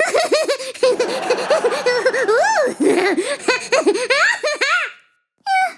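A high-pitched cartoon character's voice giggling and laughing in quick, jittery bursts for about five seconds, cutting off abruptly.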